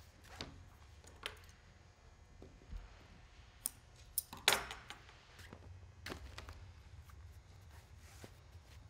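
Quiet handling of clear vinyl window material and tape-backed fabric strips on a worktable: scattered light taps and clicks, with a short crinkle about four and a half seconds in.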